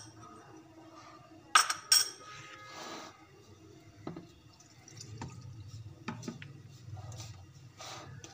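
Two sharp clinks of kitchenware about one and a half seconds in, then water sloshing in a plastic bowl, followed by hands working flour in a plastic mixing bowl to start a dough, with a few light knocks.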